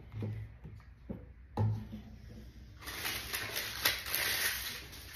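Two soft knocks of a plastic toy dinosaur being set down on a wooden table, then a few seconds of plastic packaging crinkling and rustling with a few sharp clicks.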